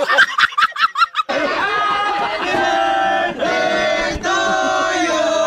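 A man laughing loudly in a quick run of bursts for about a second, then music with long held notes takes over.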